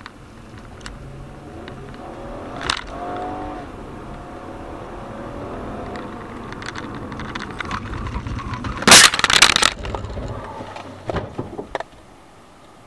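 Road and engine noise heard from inside a car, then a loud, sudden crash of a collision about nine seconds in, followed by a few smaller knocks.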